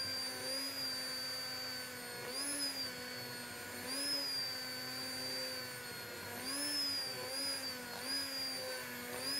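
Commercial immersion (stick) blender running in a pot of winter squash soup, pureeing it smooth. The motor holds a steady whine whose pitch rises briefly several times as the blade is moved through the soup and the load eases.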